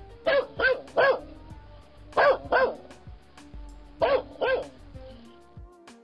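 A dog barking in short groups: three barks, then two, then two more, over light background music.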